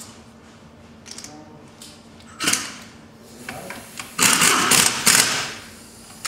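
Cordless power driver running down the bolts that hold the gearbox case: a short burst about two and a half seconds in, then a longer run from about four seconds to five and a half.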